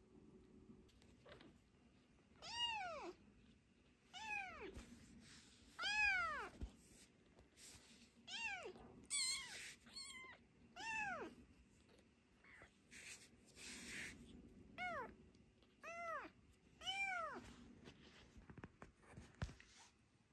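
Young kitten meowing repeatedly: about eight high cries spaced a second or two apart, each rising and then falling in pitch.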